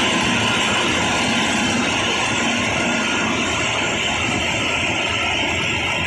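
Rice harvesting machine running steadily, a loud, even engine noise with no pauses.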